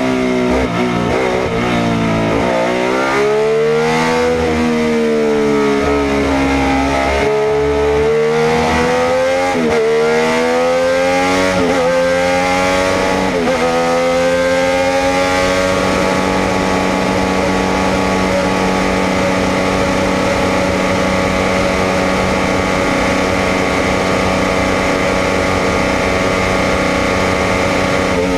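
Alfa Romeo 33 SC 12's 3.0-litre flat-12 racing engine heard from the cockpit. Its revs rise and fall sharply over and over through the first half, then hold steady and high for the rest.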